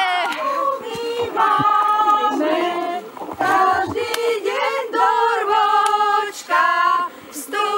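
A small group, mostly women's voices with a man among them, singing a Slovak folk song a cappella in unison, holding long notes between short breaths.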